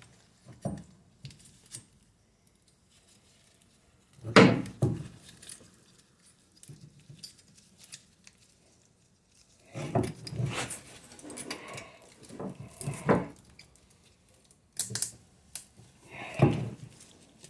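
Brake pad hardware clips and pads clinking and knocking against the metal caliper bracket as they are handled and fitted, in a few scattered clusters with quiet gaps between.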